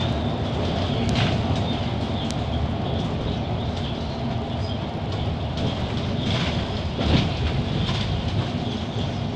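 Cabin noise of a Mercedes-Benz Citaro articulated city bus under way: a steady low rumble of engine and tyres. A few short clicks, and a louder knock about seven seconds in.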